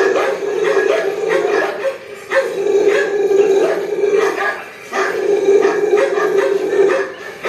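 A dog howling in three long drawn-out cries, each about two seconds, with short breaks between them.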